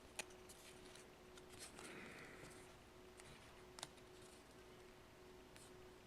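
Near silence over a faint steady hum, with a couple of light clicks and a brief soft scrape as a small metal camera part is worked into place in a phone's frame.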